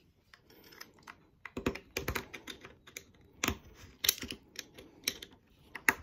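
A small screwdriver and pick working at a metal crimp ring on 3/4-inch PEX pipe, prying and twisting it: a string of irregular sharp metal clicks and taps.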